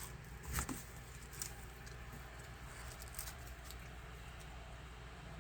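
A few light clicks and ticks from unplugging and handling a wiring pigtail connector on a power window motor, over a low steady hum.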